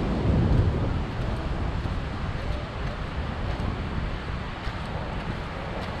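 Wind buffeting the microphone, strongest about half a second in, over a steady rush of surf.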